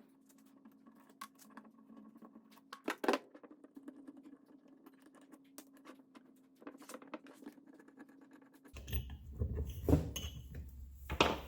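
Small clicks, scratches and light knocks of hand tools and parts as the back of a Ridgid R250AFA finish nailer is taken apart to reach its cracked seal ring, over a faint steady hum. The handling grows louder and busier near the end.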